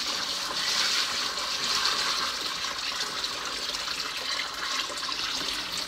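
Water pouring steadily from a tipped plastic bucket into a plastic Igloo cooler, about two gallons filling the cooler as a minnow bait tank.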